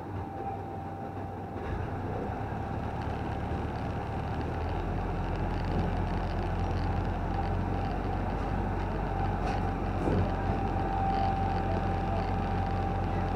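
Fire pumper truck under way, its engine a steady low drone that grows louder about two seconds in and again a few seconds later as it pulls harder, with a thin steady tone running over it.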